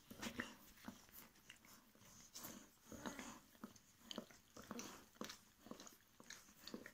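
A litter of two-week-old puppies nursing from their mother: quiet wet suckling and smacking, many small irregular clicks.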